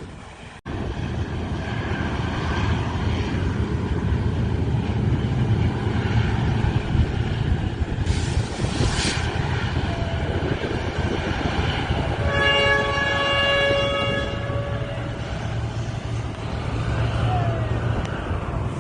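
Train running over a railway bridge with a steady low rumble. Near two-thirds of the way through, its horn sounds once for about two seconds.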